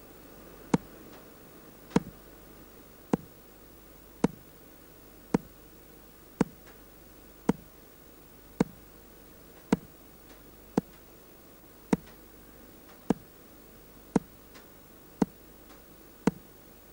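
Weight-driven pendulum clock ticking slowly and evenly, about one tick a second.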